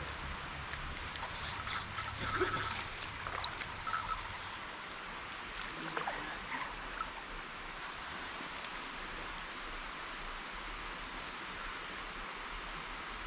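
Outdoor ambience of steady insect hum, with a scattered flurry of short high chirps and clicks from about one to seven seconds in.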